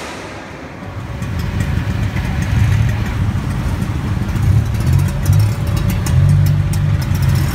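Tuk-tuk engine running in traffic, heard from the open passenger seat: a low rumble that comes in about a second in and swells and eases, with light rattling over it.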